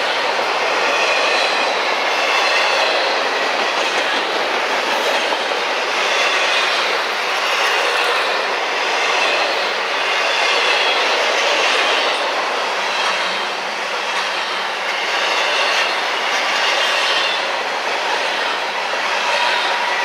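Double-stack intermodal well cars rolling past close by: a steady rumble and clatter of steel wheels on rail, swelling and easing every couple of seconds, with faint high-pitched wheel squeal.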